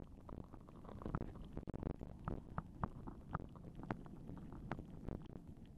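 Underwater reef ambience heard through a submerged action camera: a constant low rumble of moving water with irregular sharp clicks and crackles, several a second.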